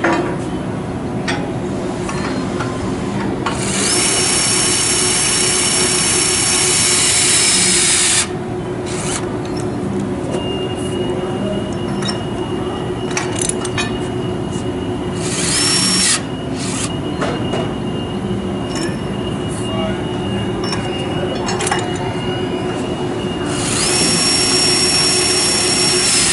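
HYTORC battery-powered torque wrench running up the nuts on a bolted pipe flange, on the first tightening pass at about 210 foot-pounds. There are three runs of motor whine: a long one of about four seconds, a short one of about a second in the middle, and one of about three seconds near the end. Each run cuts off sharply.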